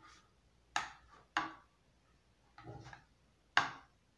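Metal serving utensil clinking and scraping against a glass baking dish while food is dished out: three sharp clinks, with a softer scrape between the second and third.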